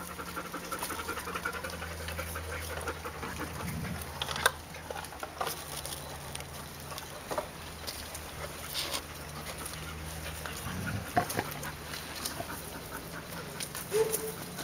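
Two Welsh Terrier puppies play-fighting and digging in sand: scuffling and panting, with scattered small knocks, the sharpest about four seconds in and again near eleven seconds.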